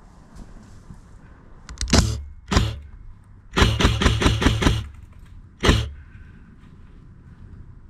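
Airsoft gun firing: two single shots, then a quick string of about eight shots, then one more shot.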